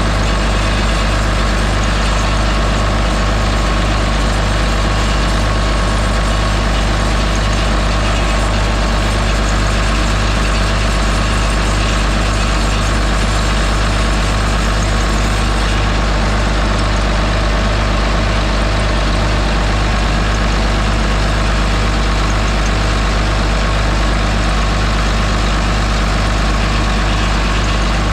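John Deere 724J loader's common-rail diesel engine idling steadily, running on a newly replaced injector fitted to cure a misfire.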